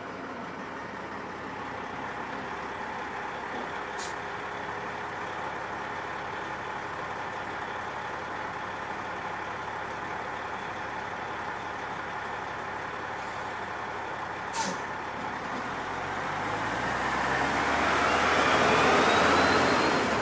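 Diesel Oshkosh 8x8 military truck running steadily, with two brief sharp clicks along the way. In the last few seconds it grows louder to a peak, with a whine climbing in pitch, then starts to fall away.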